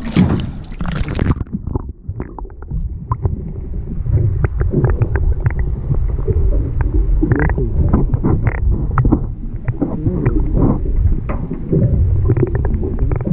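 A splash as the microphone plunges into the sea, then a muffled, low underwater rumble of moving water with many small clicks and knocks.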